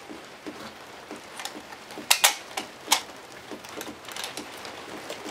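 Several sharp metallic clicks and clinks, the loudest about two seconds in: stripper clips of .303 British cartridges and the Lee-Enfield rifle's action being handled.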